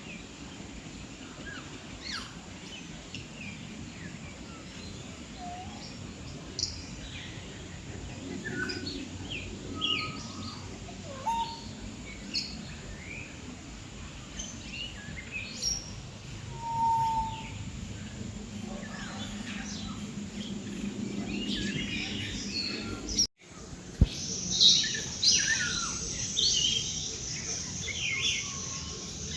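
Mixed birds calling, a scatter of short chirps and whistles over steady low background noise. After a brief break about 23 seconds in, the calls come louder and denser.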